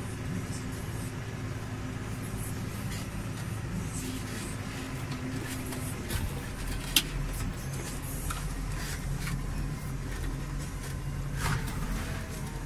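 Case IH Puma tractor's diesel engine running steadily as it drives across a field, heard from inside the cab; its note changes about six seconds in, and there is one sharp click about a second later.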